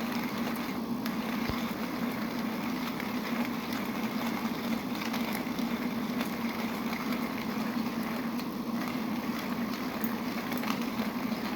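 Houselog manual coffee grinder being hand-cranked, its ceramic burrs crunching coffee beans in a steady, continuous grind.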